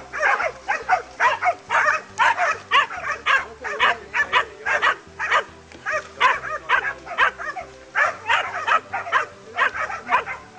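A pack of hunting dogs barking without pause at a cornered wild boar, about two to three barks a second.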